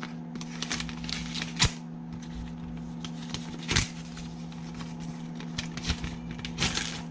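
White paper envelope being torn open and handled by hand: irregular rustling with sharp paper crackles and snaps, the loudest about a second and a half in and again near four seconds.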